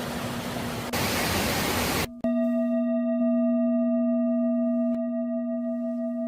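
A steady rushing noise with a ringing tone beneath it. About two seconds in, the rushing cuts off and leaves a sustained, bell-like ringing tone with several overtones, holding steady.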